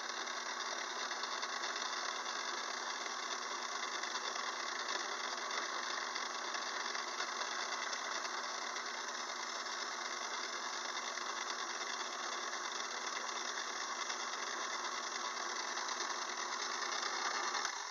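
Craftsman 6-inch metal lathe running steadily, its motor and drive making an even whir. It stops at the very end.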